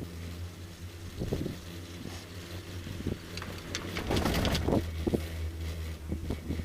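Chairlift running on the ride down: a steady low hum with a few knocks, and a louder rattling clatter about four seconds in.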